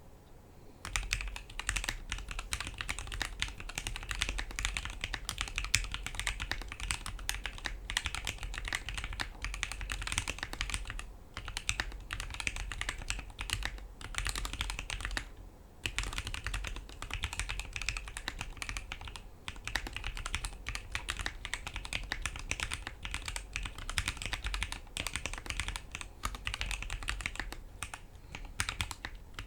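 Typing on a hotswap Alice-layout mechanical keyboard: fast, continuous keystroke clacks that start about a second in, with a few brief pauses.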